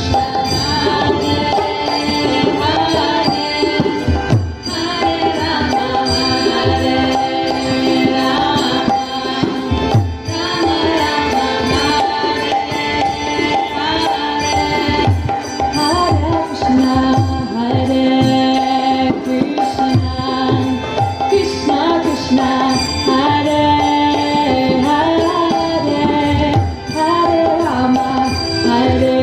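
Live kirtan music: a harmonium holds notes that step through a melody over continuous hand-drumming on a mridanga and a djembe.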